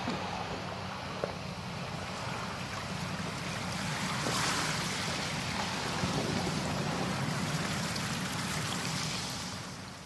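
Steady water noise with splashing as Canada geese run and flap across the surface of a pond and land. It grows a little louder from about four seconds in.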